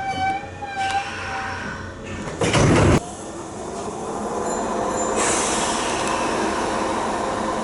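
A Nankai electric train running through the station. A short, loud blast of noise comes about two and a half seconds in. Then the train's rushing sound builds and holds steady, with a hum running underneath.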